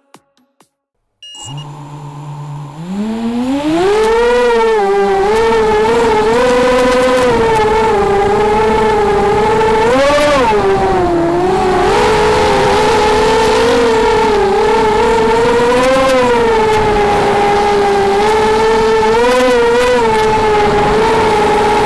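Brushless motors and propellers of an Armattan F1-4B racing quadcopter on Cobra 2204 2300KV motors, recorded on board: a low idle hum starts a little over a second in, spools up into a high whine over the next two seconds, then holds loud, rising and falling with throttle as the quad flies.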